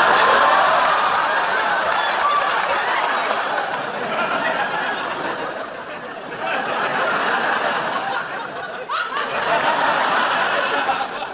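Sitcom studio audience laughing at length, in waves: loud at first, easing toward the middle, then swelling again twice before fading near the end.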